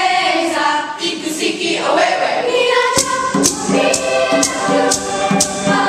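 Middle school choir of girls and boys singing together. A sharp percussion beat about twice a second goes with the singing, falls away briefly and comes back about three seconds in.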